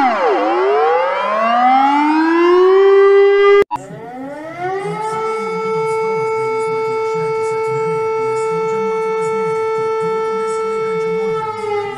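Civil defence siren sounding: its tone drops sharply and climbs slowly back to a steady pitch, breaks off a little under four seconds in, then a new siren tone rises and holds steady before starting to fall near the end.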